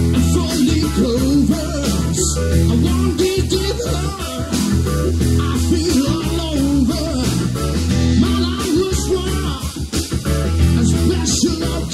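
Live rock-and-roll band playing an instrumental passage: electric guitar with bending notes over a Roland stage keyboard, drums and a steady low-end beat.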